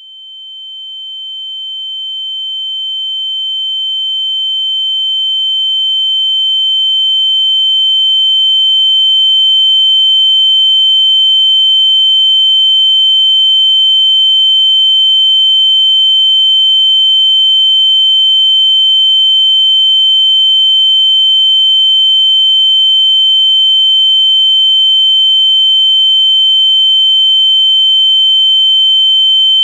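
Synthetic ear-ringing (tinnitus) sound effect: a single steady high-pitched tone, fading in over the first ten seconds or so and then held at a constant loud level.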